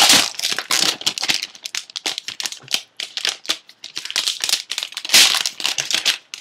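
Packaging being handled and rustled: crinkling and rustling with many small clicks and knocks, loudest at the start and again about five seconds in.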